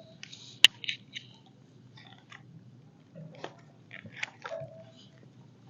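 Paper rustling and scattered clicks, loudest a sharp click about half a second in, as a picture book is handled and its page turned.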